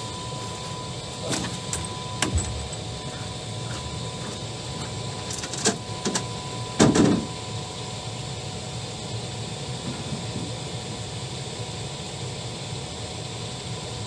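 Footfalls and bumps on a small boat's deck and hull as a man moves to the bow and works in the boat's hold. There are scattered knocks, a cluster of sharp clacks about five seconds in and a heavier thud about seven seconds in, over a steady low background noise.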